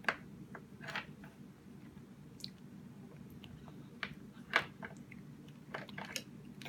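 A baby's wet mouth sounds while eating applesauce: a handful of short, irregular lip smacks and clicks as he mouths his hand and spoon.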